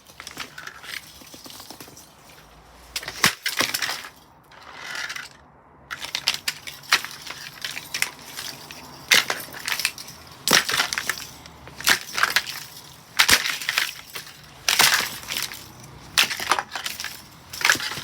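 A Blaupunkt fan heater being smashed apart: a string of hard knocks and cracking crunches, a few early on and then about one every second or so through the second half.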